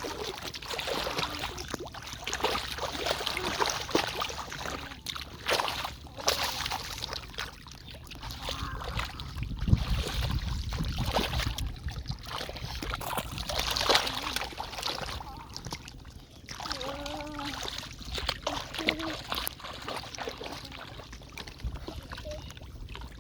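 River water splashing and sloshing in irregular bursts, as of someone wading and groping by hand in shallow water, with a few short higher-pitched sounds about two-thirds of the way through.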